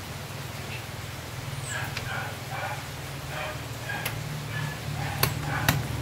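Sharp clicks as the driver airbag/horn pad is pressed into the hub of a carbon-fibre steering wheel: one about four seconds in, then two louder ones near the end. A steady low hum runs underneath.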